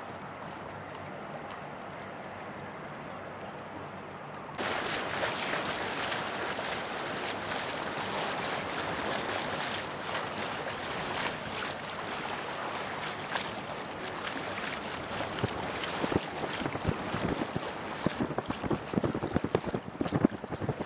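Steady rushing noise of wind and water on the microphone, which jumps up suddenly about four and a half seconds in. Toward the end, uneven gusts buffet the microphone.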